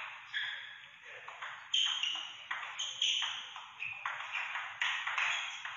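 Table tennis rally: the ball clicks sharply off the rackets and the table, a quick run of pocks two to three a second starting about a second and a half in.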